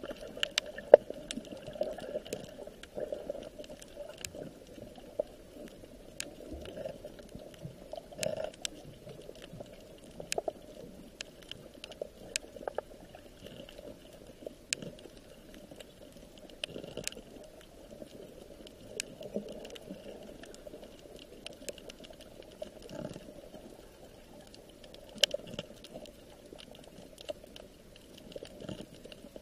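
Water bubbling and burbling steadily, with many scattered sharp clicks.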